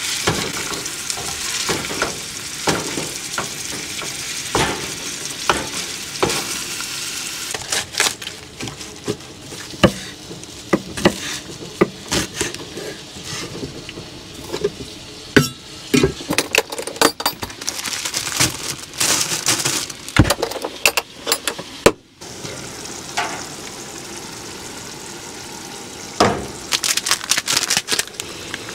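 Meat sizzling in a frying pan while a utensil stirs it, with frequent clicks and scrapes against the pan.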